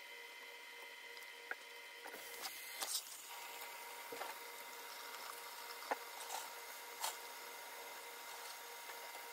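Light clicks and knocks of an oven door being opened and aluminium foil pans of brownie batter being set on the metal oven rack, over a faint steady hum.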